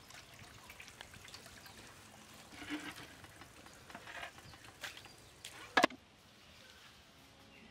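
Fish being rinsed by hand in a steel plate under a hand pump's trickle of water: light splashing with small clinks of the plate. One loud sharp knock comes just before six seconds in.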